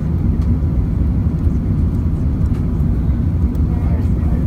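Steady low rumble of cabin noise aboard an Airbus A380-800 in flight: engine and airflow noise heard from inside the cabin.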